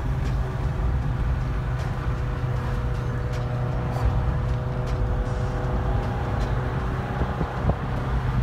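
Steady engine drone and road noise heard from inside a Nissan Versa's cabin while it cruises at a constant speed, with a few light ticks.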